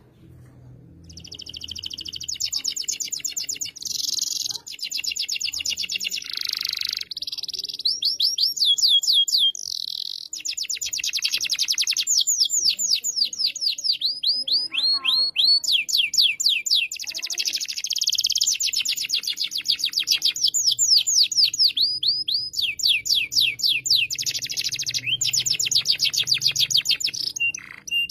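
Domestic canary singing a long, loud song of rapid trills: runs of quick repeated notes that change every second or two, some sweeping down in pitch.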